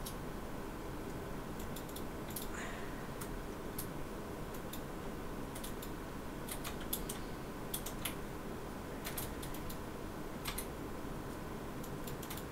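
Scattered light, irregular clicks and ticks from hands working with yarn and fabric on a craft project, over a steady low room hum.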